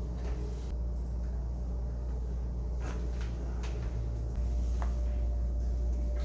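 Joints cracking during a chiropractic adjustment: a few faint, short clicks about three and three and a half seconds in and again near five seconds, over a steady low hum.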